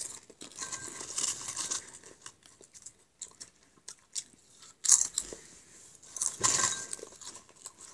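Potato crisps being bitten and chewed, a run of small, irregular crunches.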